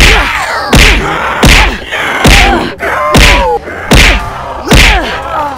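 A run of about seven heavy thuds, one every three-quarters of a second or so, each with a short falling tone after it.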